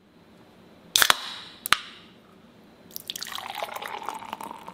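A carbonated drink is opened with a sharp crack and a short fizzing hiss, followed by a second click. About three seconds in, beer is poured into a glass, splashing and foaming steadily.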